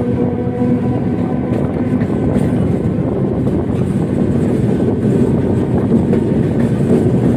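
Kolkata suburban electric local train running along the track, heard from its open doorway: a steady loud rumble of wheels on rails with a steady hum running through it.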